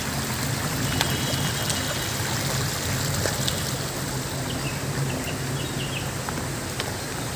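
Stream water rushing steadily over rocks, with a few faint high chirps in the middle and toward the end.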